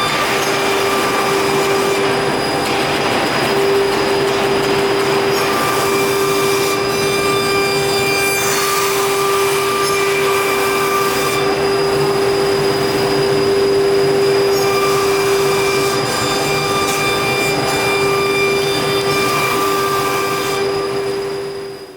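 CNC nesting router at work, its spindle giving a steady high whine over a rushing cutting noise that swells and eases every few seconds, fading out near the end.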